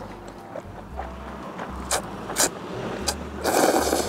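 Close-miked eating sounds of spicy jjamppong ramyeon: a few wet mouth clicks while chewing, then a loud slurp near the end as she sips from the plate.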